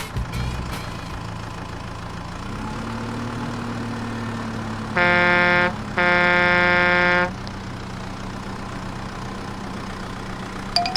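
Vehicle engine sound effect running steadily, with a horn honking twice about five seconds in: a short blast, then a longer one.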